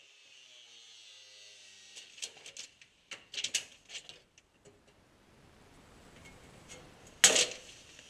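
Hand tools knocking and clicking on the steel floor of a stripped car shell: a quick run of short knocks, then one loud sharp metal bang about seven seconds in, over a faint steady hiss.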